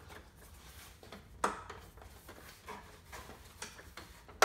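Plastic retaining clips of a Toyota Tacoma TRD Pro grille snapping into the grille bezel: a sharp snap about 1.5 s in and another near the end, with light rustling and handling of the plastic parts between.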